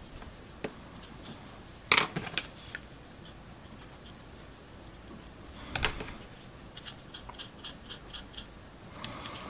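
Small tools and plastic model parts being handled on a workbench: scattered light clicks and taps, a sharper clatter about two seconds in and again about six seconds in, then a run of small quick ticks toward the end.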